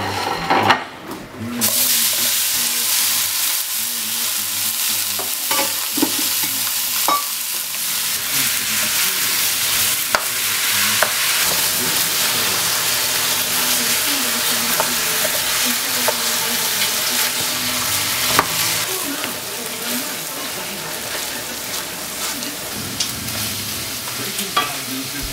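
Ground beef frying in a nonstick pan: a loud, steady sizzle that starts suddenly about two seconds in. Occasional sharp knocks and scrapes come from a utensil stirring the meat.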